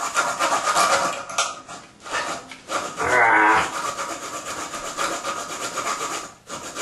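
A bare Sawzall blade held in a gloved hand sawing through a toilet closet bolt: rapid back-and-forth rasping strokes of metal teeth on the bolt, easing off briefly about a second and a half in. A short pitched sound rises over the sawing about three seconds in.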